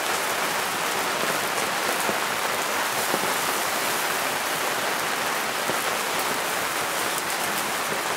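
Lamb skewers sizzling and crackling over a charcoal grill: a steady hiss of fat and oil spitting on the coals.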